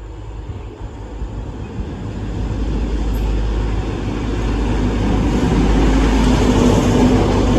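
A train approaching along the line, its rumble and rail noise growing steadily louder, with a low steady hum coming up in the last couple of seconds.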